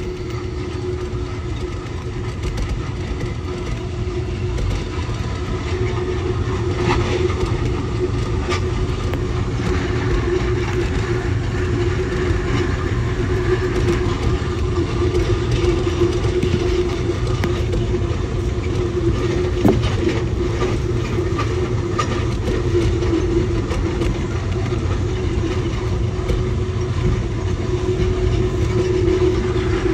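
Amtrak passenger train running at speed on the rails: a steady rumble with a steady hum and a few faint clicks.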